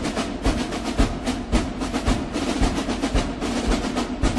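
Background music: a military marching drum cadence, with snare-drum rolls over a steady bass-drum beat about twice a second.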